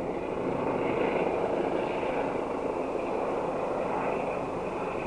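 Helicopter hovering overhead, its rotor and engine noise steady, growing a little louder about a second in.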